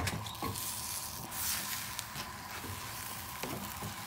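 Vegetable pancake sizzling in a frying pan over a gas flame, a steady hiss with a few faint taps; the underside has burned black.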